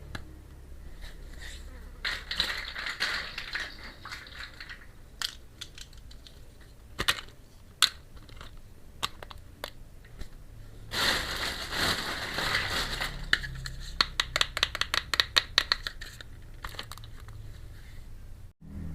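Crinkling of plastic packaging during an unboxing, in two stretches, with scattered sharp clicks of small pieces being handled and a quick run of ticks about three-quarters of the way in.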